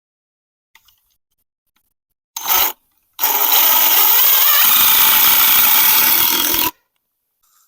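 A handheld power tool gives a short burst, then runs steadily for about three and a half seconds before cutting off. The sound deepens about halfway through the run.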